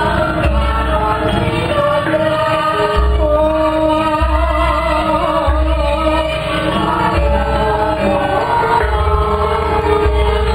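Javanese gamelan ensemble playing a steady piece, with voices singing held, slowly bending notes over the bronze instruments and deep low tones coming and going beneath.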